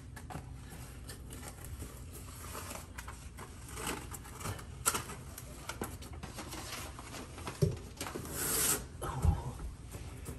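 Rustling and rubbing of a clear, sandpaper-rough anti-slip stair tread sticker being handled and its backing peeled off for sticking on a step. There is a longer tearing hiss about eight seconds in and a couple of soft knocks.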